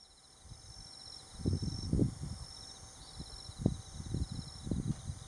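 Insects singing steadily, several high continuous songs with one pulsing trill among them. A run of low, dull knocks and rustles comes and goes through the middle.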